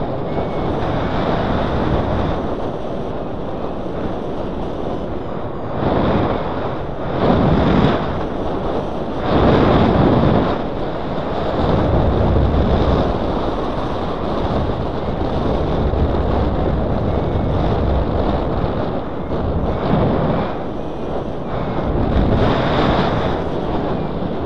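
Wind rushing over the microphone of a paraglider's harness-mounted camera in flight: a steady rush that swells louder around six to eight seconds in and again about nine to eleven seconds in.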